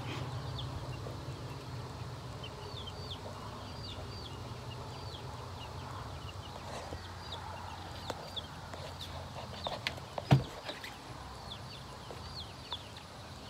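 Baby chicks peeping over and over, many short high cheeps that fall in pitch. A single sharp knock about ten seconds in, with a few fainter clicks just before it.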